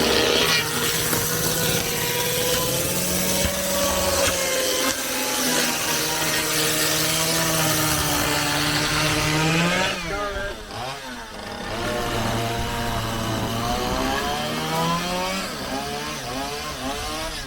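Chainsaw cutting through the wooden hull of an old boat, running at high revs. About ten seconds in it comes off the cut: the cutting noise drops and the engine's pitch dips and climbs again, then it runs on at lower, varying revs.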